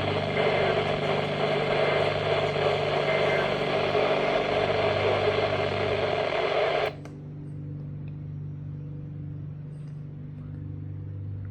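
Steady static hiss over a low electrical hum. The hiss cuts off suddenly about seven seconds in, leaving only the hum.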